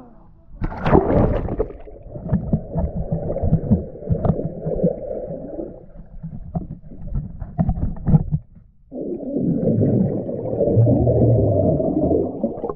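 Muffled underwater sound from a camera held below the surface of a swimming pool. There is a splash about half a second in, then churning, bubbling water with scattered clicks. After a brief lull the sound comes back as a steady rush of bubbles while the swimmer breathes out underwater near the end.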